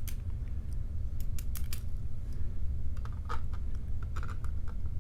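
Scattered small metallic clicks and taps from a padlock's parts and tools being handled, a few coming in a quick cluster after about three seconds, over a steady low hum.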